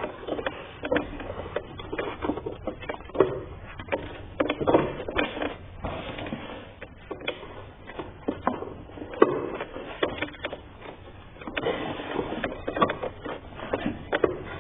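Irregular clicks, knocks and rattles of hand work on car parts, such as tools and plastic or rubber intake parts being handled.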